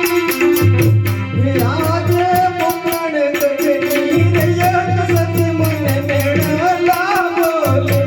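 Live Gujarati folk devotional music: small cymbals or a rattle keep a steady beat about four to five times a second over a drum. About a second and a half in, a wavering melody line enters and holds, sliding up and down.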